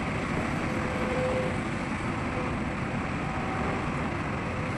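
Diesel engines of heavy machinery running steadily: a continuous low rumble with a faint hum.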